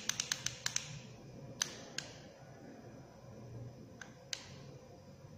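Push buttons on a digital microscope clicking as they are pressed to step the digital zoom up and down. There is a quick run of clicks in the first second, then four single clicks spread over the rest.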